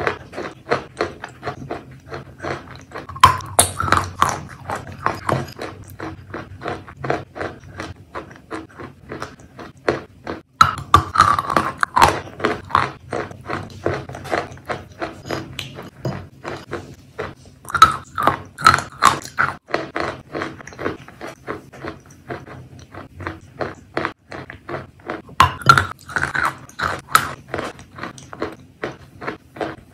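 Chewing of wet chalk coated in chalk paste: a steady run of small wet, sticky mouth clicks and soft crunches, louder about every seven seconds.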